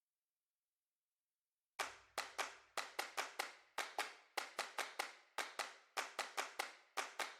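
Silence, then about two seconds in a run of sharp percussive hits in an uneven rhythm, roughly three or four a second: the percussion opening of a background music track.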